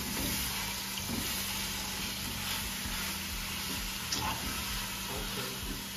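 Ground beef sizzling in hot oil in a cooking pot: a steady hiss, with light scrapes and clicks of a spoon as the meat is stirred and broken up.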